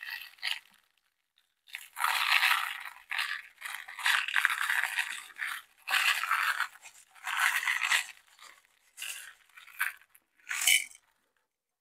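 Aquarium gravel poured from a plastic cup into the cells of a plastic ice cube tray, rattling in several pours of a second or two each with short pauses between them, then a few shorter rattles near the end.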